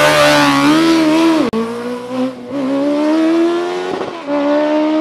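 Suzuki sport motorcycle accelerating flat out on a drag-race run, its engine pitch climbing and dropping back at each upshift, three gear changes in a few seconds.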